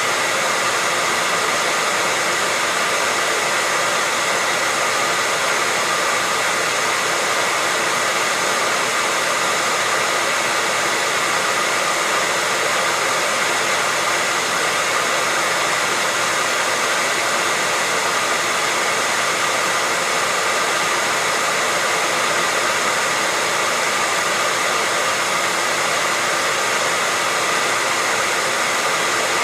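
Handheld hair dryer running steadily: an even fan-and-airflow rush with a faint steady whine, unchanging throughout.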